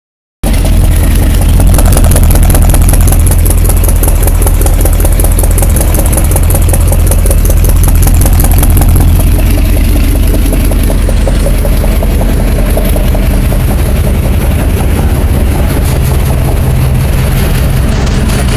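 1979 GMC truck's engine idling loudly and steadily through newly fitted Thrush glasspack mufflers, giving a deep exhaust note.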